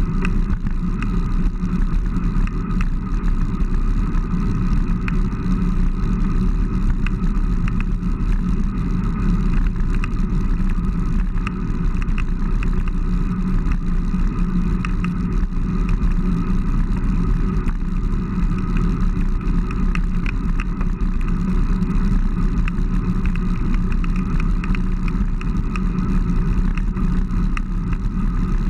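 Steady wind rush buffeting the microphone of a camera on a moving bicycle as it rides along a road, loud and unchanging throughout.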